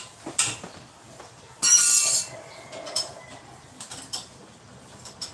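Metal hand tools clicking and clinking against engine parts, with one louder metallic clatter of about half a second, ringing briefly, near the middle.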